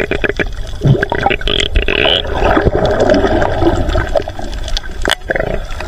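Water heard underwater through a submerged camera: churning and bubbling, with many scattered clicks and knocks.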